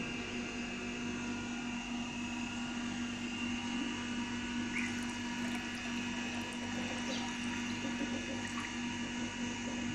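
Oil poured in a thin stream from a small glass bottle into a metal pan of oil, with faint clicks of the bottle, over a steady low electrical hum.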